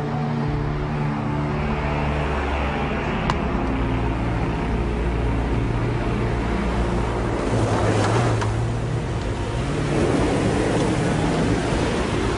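Background music of held low notes, with the rushing noise of an approaching car that swells about eight seconds in and again near ten seconds.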